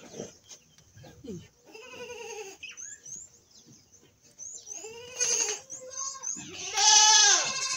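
Goats bleating: three wavering calls, a faint one about two seconds in, then two louder ones, the loudest near the end.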